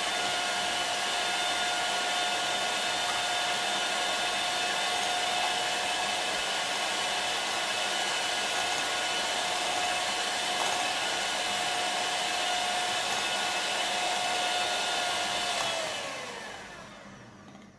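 Handheld electric mixer running at a steady speed with a high whine, its beaters whipping instant cappuccino, sugar and hot water into dalgona foam in a small glass. Near the end the motor is switched off and its whine falls in pitch as it winds down.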